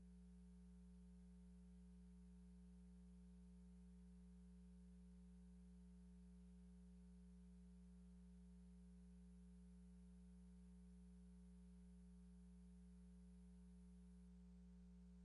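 Near silence: only a faint, steady electrical hum, with no other sound.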